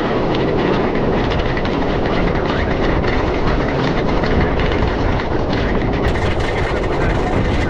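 Roller coaster train running along its track at speed: a loud, steady rush of wheel noise and wind on the microphone, with a rapid clacking.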